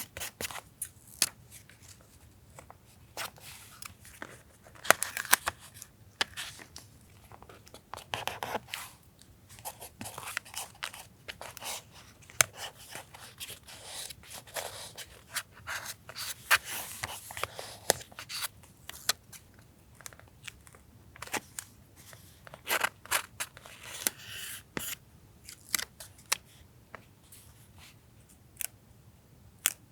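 Close-up paper-craft handling sounds from journal collage: paper and stickers rustling, crinkling and being cut, with many irregular sharp little clicks and taps.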